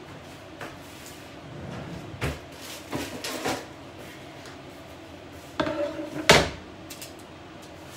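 Scattered knocks and clatter of kitchen handling, a few light ones in the first half, then a louder cluster about six seconds in as a wooden board and a metal baking tray are set down on the stone countertop.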